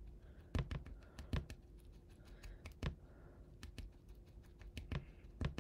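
Irregular small clicks and taps of hands and materials being handled on a fly-tying bench while glue is worked into a pike fly's fibres and the eyes are readied, over a faint steady hum.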